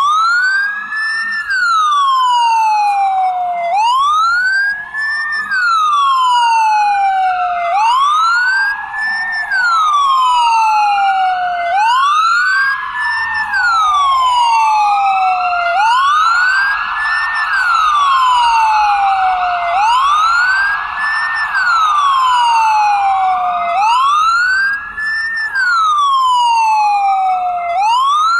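Ambulance siren wailing: a quick rise in pitch and a slower fall, repeating about every four seconds, with a fainter second sweep overlapping it out of step.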